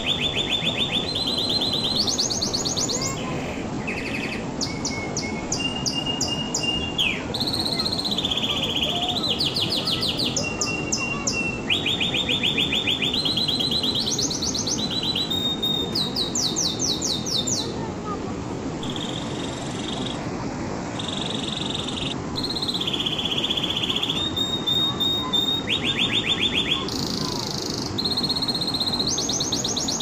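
Domestic canary singing a long, continuous song of rapid trilled tours, each lasting about a second and jumping to a new pitch, over a steady low background noise.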